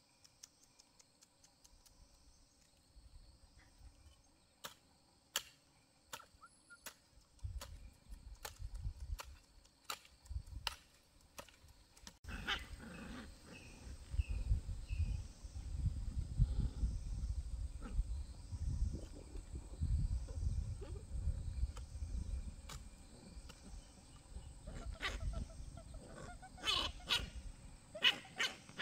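A hoe chopping into dry soil, a stroke about every second. About twelve seconds in, a puppy whimpering and yipping close by, over a low rumble.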